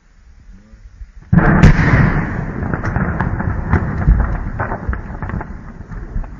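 Incendiary munition bursting: a sudden loud blast a little over a second in, then a dense crackling rumble full of sharp pops and cracks that slowly fades.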